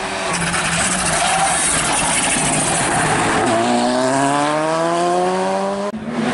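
Volkswagen Polo GTI R5 rally car's turbocharged four-cylinder engine coming on at speed, then accelerating hard past with its pitch climbing steadily. Near the end it cuts off abruptly into another rally car's engine.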